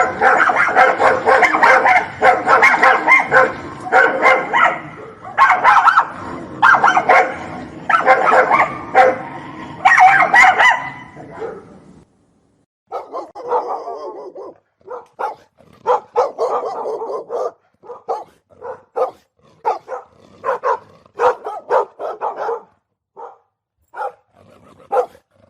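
Dogs fighting: loud, dense barking from several dogs over one another. It cuts off suddenly about twelve seconds in, and after a short gap come shorter, quieter, spaced barks.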